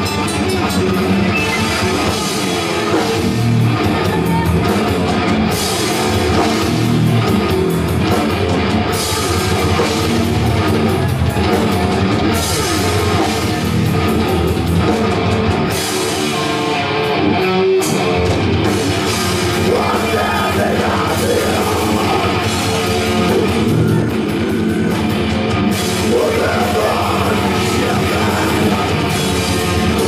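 A live rock band playing loudly: electric guitars and a drum kit, as heard from the crowd in a club.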